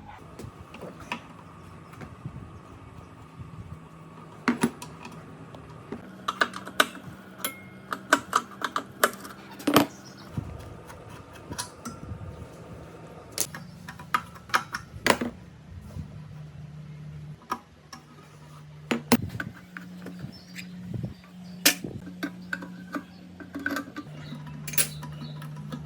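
Metal tools and parts being handled: irregular sharp clinks and taps, some loud, over a steady low hum.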